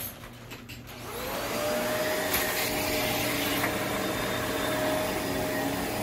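Upright vacuum cleaner starting up about a second in, its motor pitch rising as it spins up, then running steadily as it is pushed over carpet.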